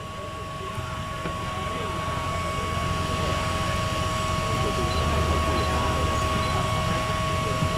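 Crowd chatter over a steady hum, with a steady high tone running through it, slowly getting louder.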